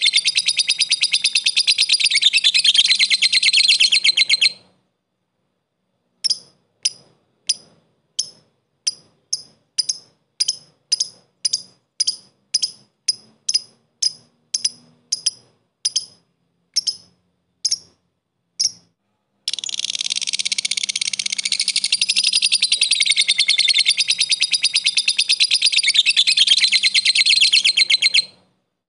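Lovebird singing: a long, fast, high-pitched chattering trill (ngekek) that breaks off after about four and a half seconds into a string of single sharp ticking chirps (ngetik), about two a second. Near twenty seconds in it switches back into a long trill lasting about nine seconds.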